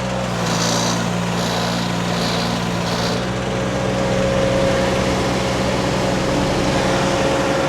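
Derette V1000 mini skid steer's engine running steadily, with a steady hydraulic whine as the loader works to lift the load; the whine grows stronger about three and a half seconds in.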